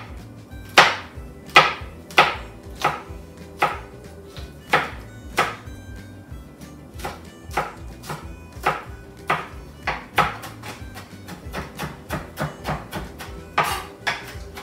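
Kitchen knife chopping red chilies on a cutting board: a sharp knock with each cut, spaced unevenly at first and coming faster, about three a second, from roughly seven seconds in. Background music runs underneath.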